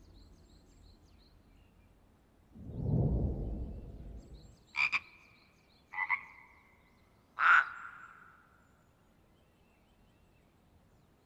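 A low whoosh, then three sharp taps about a second apart, each followed by a short, high ringing tone that fades.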